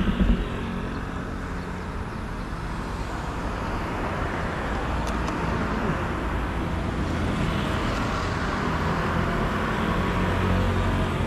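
Steady road-traffic noise with a low engine hum, slowly growing louder, and a couple of knocks right at the start.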